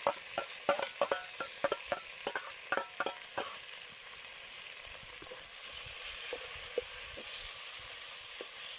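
Onion, garlic and black pepper sizzling in hot cooking oil in a sufuria, with a spoon knocking and clinking against the pot as they are stirred. The knocks come in a quick run over the first three and a half seconds, then only a few scattered taps over the steady sizzle.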